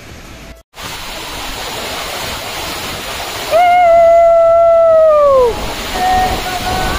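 Kynrem Falls, a large waterfall in full monsoon flow, rushing as a dense steady roar of water. For about two seconds in the middle, a loud long held tone rises over it and falls away in pitch as it ends. Fainter wavering tones follow near the end.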